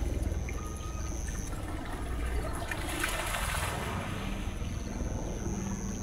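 Water pouring off a small wooden waterwheel and splashing steadily into a pond, with a low rumble underneath and a thin, steady high tone.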